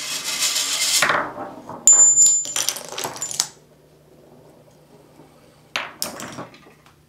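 A marble rolling fast down a plastic track, followed by a run of clattering and metallic clinks as the marble-run contraption's parts set each other off, and two or three sharp knocks about six seconds in.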